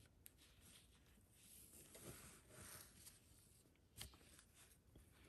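Near silence, with faint rustling of quilted fabric and thread being handled by fingers, and one faint tick about four seconds in.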